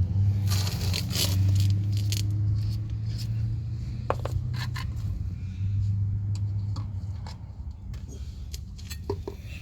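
Light metallic clinks and scraping from brake caliper parts being handled and wiped of excess grease, over a low steady hum that fades near the end.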